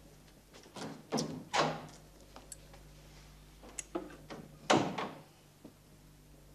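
A door being handled and shut: a cluster of sharp knocks and thuds about a second in, and a second cluster around four to five seconds.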